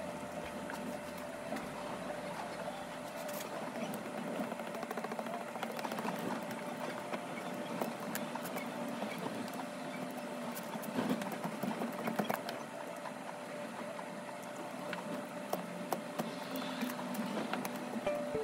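Small stick scraping and tapping against a board while mixing a thick paste, many light ticks and scrapes over a steady faint hum.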